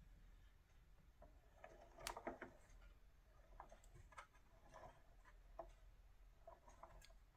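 Faint, scattered clicks and light knocks from a 1969 Remington Mark II manual typewriter being handled, with a brief cluster about two seconds in, against near-silent room tone.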